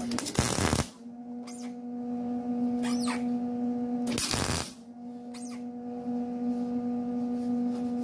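MIG welder laying two short tack welds on the sheet-steel seam of a replacement cab corner patch panel, each a crackling burst of under a second, about four seconds apart. A steady hum runs between the welds.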